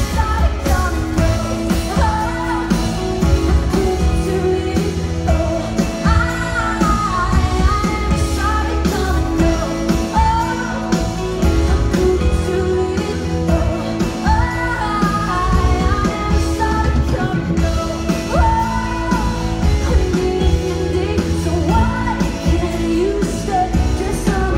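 Live rock band playing through a concert PA, heard from the crowd: a female lead singer sings over electric guitars, bass and drums.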